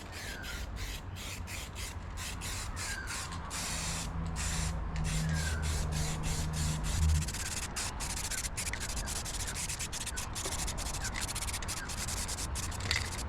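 Quick, repeated rubbing strokes against steel, many short scrapes with brief pauses between them. A low hum joins in for a few seconds in the middle.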